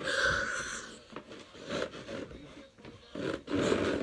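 Handling noise from a phone being moved and set down: rustling and scraping with a few light bumps, loudest at the start and again near the end.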